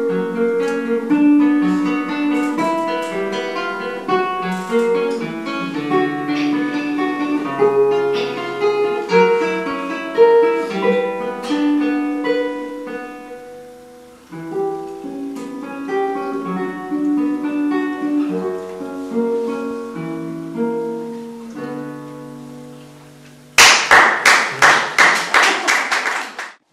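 Solo classical guitar played fingerstyle, single plucked notes and chords in a slow piece. The piece ends a little after twenty seconds in, and about a second later loud, dense clapping starts and runs for around three seconds before cutting off.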